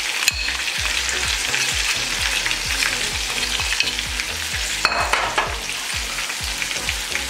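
Chicken pieces frying in hot oil in a karahi (wok), a steady sizzle with powdered spices just added. A brief louder noise comes about five seconds in.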